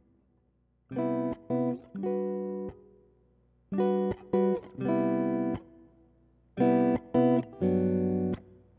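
Background music: an acoustic guitar picking three short phrases of notes, each followed by a brief pause.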